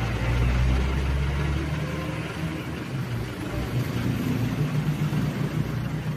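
An engine running steadily with a low hum, and a deeper rumble in the first two seconds that fades out.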